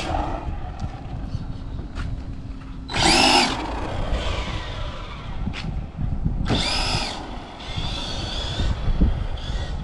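Brushless electric motor of a Losi 1968 Ford F100 no-prep drag truck (radio-controlled) whining in short bursts as the truck accelerates and brakes on a 2S battery. The whine climbs and falls in pitch, loudest about three seconds in and again about six and a half seconds in, with a fainter burst near eight seconds.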